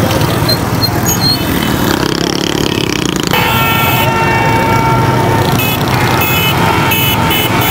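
Motorbike engines running in a dense crowd of motorbikes and vehicles. A vehicle horn starts about three seconds in and is held, then gives a rapid series of short honks near the end.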